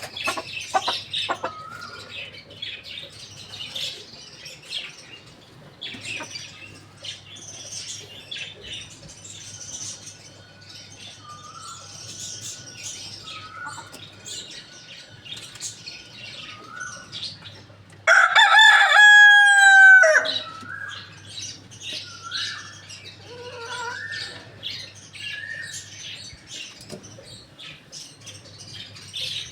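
A rooster crows once, loud and close, for about two seconds, some two-thirds of the way in. Around it, small birds chirp and chickens cluck with short calls.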